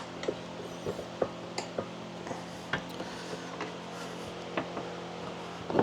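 Scattered light clicks and taps, seven or eight at irregular intervals, as tools and parts are handled on a workbench, over a steady low hum.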